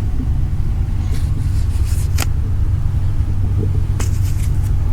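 Steady low rumble, with a sharp click about two seconds in and another near the end, as wiring and parts are fitted back into a car door.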